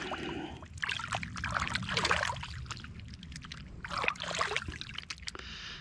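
Water splashing and trickling in several short bursts, about a second in, around two seconds and around four seconds: hands being rinsed in river water to wash off mud and fish slime.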